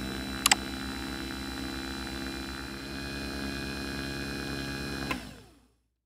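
A steady mechanical or electrical hum with many even overtones and no change in pitch, with two short clicks about half a second in; it fades out just after five seconds.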